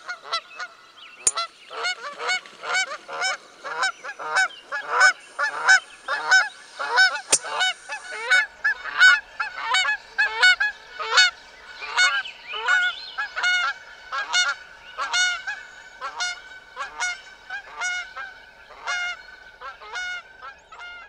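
Geese honking over and over, a long run of calls about two a second that stops abruptly at the end.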